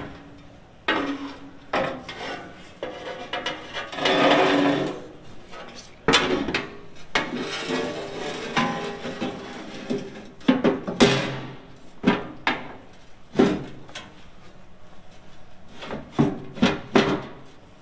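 Steel chequer-plate bin lid being lifted and shuffled into place on a steel storage bin: metal scraping and sliding with repeated irregular knocks and clanks, loudest about four seconds in and again around eleven seconds.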